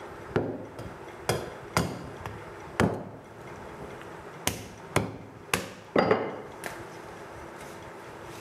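Butcher's knife chopping at a goat foreleg while stripping the meat off the bone: about nine sharp, irregular knocks, the loudest about six seconds in.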